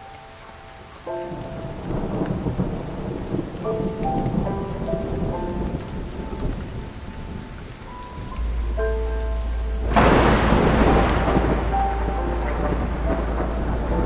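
Steady rain with a thunderclap about ten seconds in that fades slowly, over soft sustained musical notes; a low steady rumble joins shortly before the thunder.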